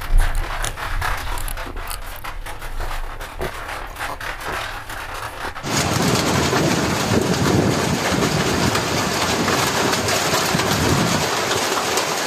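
Wet mouth clicks and smacks from licking food off fingers. Almost six seconds in, a louder steady rushing noise starts abruptly and covers them.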